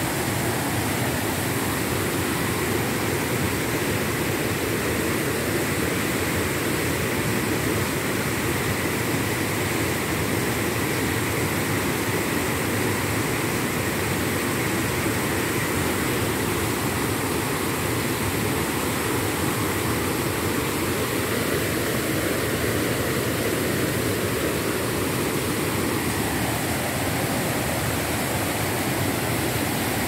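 White water of a fast river rushing over rocks and a low cascade: a loud, steady, unbroken rush.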